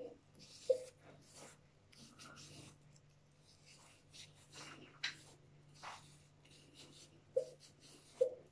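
Cotton pad with toner wiped over the skin of the face: soft, irregular rubbing strokes, with a few short sharp clicks near the start and near the end.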